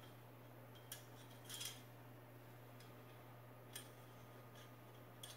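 Metal curtain hooks clinking and sliding on a curtain rod: a few light metallic clicks, about a second in, around a second and a half, near four seconds and at the end, over a steady low hum.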